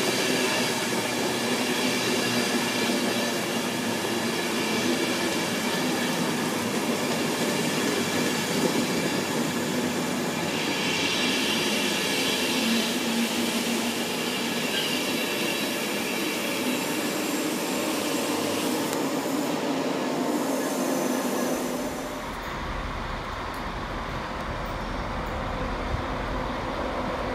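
Mark 4 coaches of an InterCity 225 express rushing past at speed: steady wheel-on-rail roar with a thin high ringing over it. About 22 s in it cuts off abruptly to a quieter scene with wind rumbling on the microphone.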